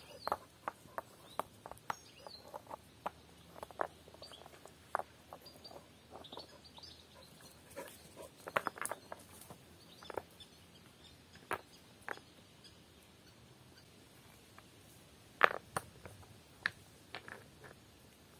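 Stones clacking and knocking against one another as rocks are set by hand into a fire ring, in irregular single strikes, with one louder clack late on. Faint bird chirps in the background.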